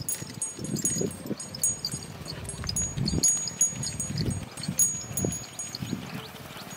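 Small metal bells on the neck collars of a pair of plow oxen jingling as the animals walk, with soft low thumps mixed in.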